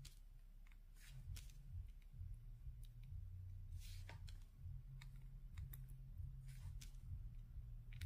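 Faint, irregular light clicks of diamond-painting work: small resin drills and the placing tool tapping onto the canvas, over a steady low hum.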